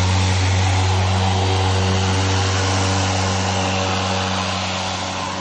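EGO 21-inch Select Cut cordless electric mower running and cutting grass: a steady low motor-and-blade hum over a rushing whoosh of air, getting a little fainter near the end.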